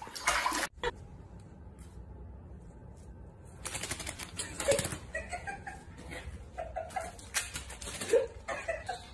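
Brief splashing of water in a bathtub, then after a quiet pause a cat's claws clicking rapidly and irregularly on a tile floor as it walks.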